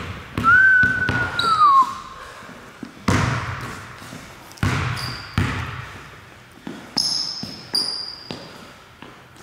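Basketball bouncing on a hardwood gym floor: several slow, irregular bounces, each echoing in the hall. Sneakers squeak on the court: one long squeak that falls in pitch about half a second in, and short high chirps later.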